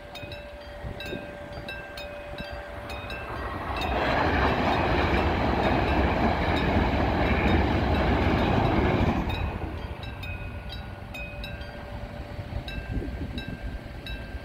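Level-crossing warning bell ringing in even strokes, about two a second. From about four seconds in, an ITX-Saemaeul electric multiple unit passes for about five seconds with a loud rush of wheels on rail that drowns the bell. The bell is still ringing after the train has gone.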